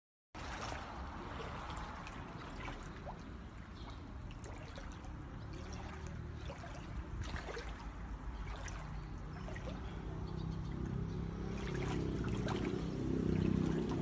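Brown floodwater running and lapping through a flooded street, with scattered small splashes and clicks. It starts abruptly just after the beginning, and a low rumble grows louder over the last few seconds.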